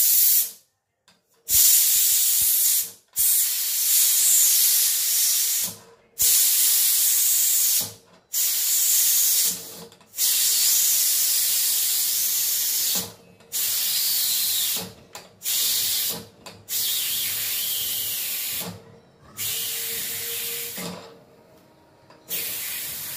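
Steam hissing out of a stovetop pressure cooker as its weight valve is lifted by hand to release the pressure. It comes in about ten bursts with short gaps between, and grows weaker near the end as the pressure falls.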